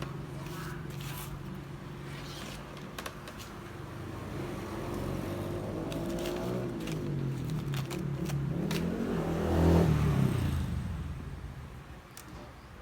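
A motor vehicle's engine passing by. It grows louder with a rising pitch, is loudest about ten seconds in, then drops in pitch and fades away.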